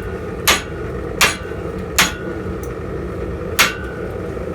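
Hammer blows on hot steel at the anvil while forging: four sharp ringing strikes, three at an even pace and then one after a short pause, over a steady low rushing noise.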